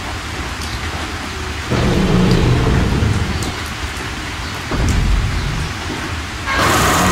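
Steady rain sound effect with two deep rumbles. Near the end a louder sound with a held pitch cuts in.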